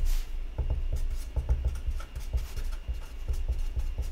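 Felt-tip marker writing on a sheet of paper on a wooden desk: a run of short, irregular pen strokes with light knocks through the desk.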